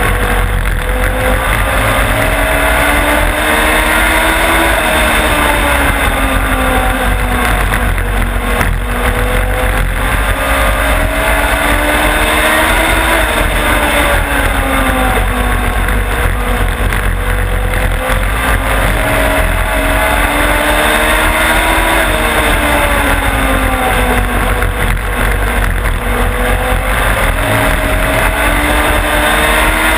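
Onboard sound of a Legends race car's Yamaha motorcycle engine at racing speed, its pitch climbing along each straight and dropping as the throttle is lifted for the turns, about every eight seconds. A steady low rumble of wind and track noise runs under it.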